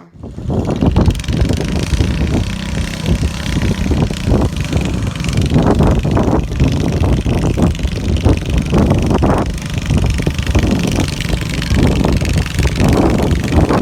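Riding lawn mower engine running hard under load, pulling a sled in a lawn mower pull, with a rough, uneven note; the owner says the engine isn't running right.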